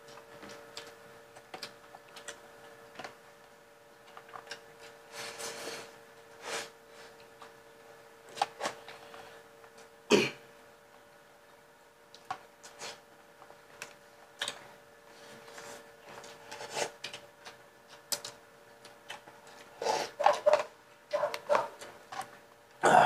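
Mukbang eating sounds from people eating crab, rice and noodles with their hands: scattered mouth smacks, chewing and slurping, with a sharp click about halfway through as the loudest sound. A steady hum runs underneath, and a few short throaty vocal sounds come near the end.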